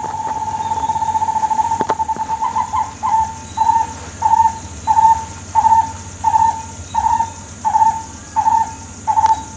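A bird calling: one clear note held for about two seconds, then breaking into a run of short repeated notes at about one and a half a second.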